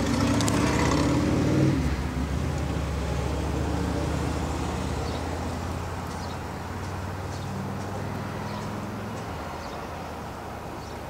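A motor vehicle running with a steady low hum, heard from inside a car's cabin, slowly growing quieter.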